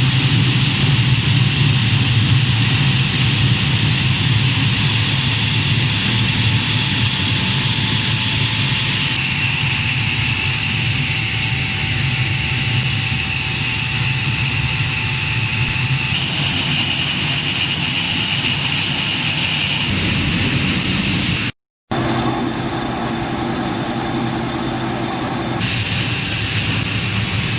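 Small roller-type wheat flour milling machine running steadily while grinding, a loud even machine drone with a low hum, a high hiss and faint steady whine tones. The mix shifts abruptly a few times and drops out briefly about 21 seconds in.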